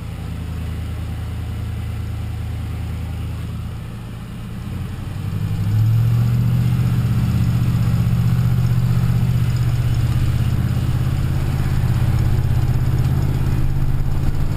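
2004 Ford F-150's 5.4-litre three-valve Triton V8 running against the brakes. It idles, then is brought up under load about five seconds in and held there, with a rapid ticking/knocking from the engine. The owner first took the tick for the well-known cam phaser noise; it proved to be an exhaust leak from a broken exhaust header bolt.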